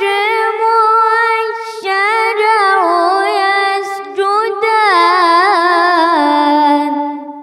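A boy's voice reciting the Quran in mujawwad style, drawing one phrase out into a long, high, melismatic line with wavering ornaments. The pitch steps down twice and the line fades away at the end.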